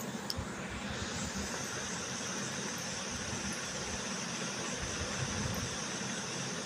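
Steady low hum with an even hiss over it, like a machine running in the background; the hiss grows a little stronger about a second in and then holds steady.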